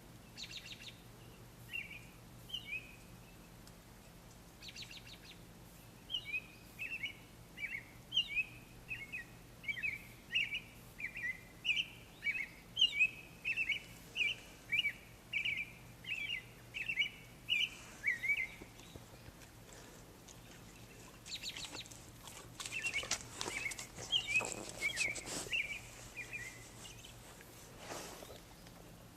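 Songbirds singing in the early morning: a rapid string of short, high two-note phrases, repeated over and over, that pauses near the middle and then resumes, with a few brief crackling noises mixed in.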